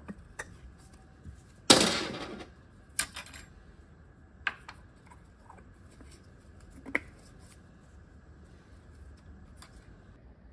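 Scattered small clicks and knocks of metal parts as accumulator pistons and springs are pushed into their bores in a Subaru 4EAT automatic transmission's aluminium case, with one louder half-second clatter about two seconds in.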